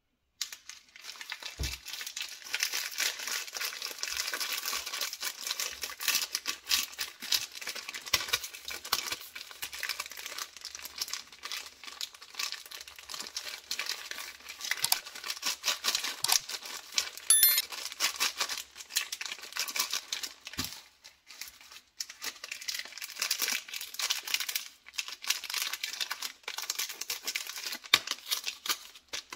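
Plastic chocolate-bar wrappers crinkling and rustling as hands handle them, in dense crackly bursts with a brief lull about two-thirds of the way through; near the end a KitKat Chunky wrapper is being handled.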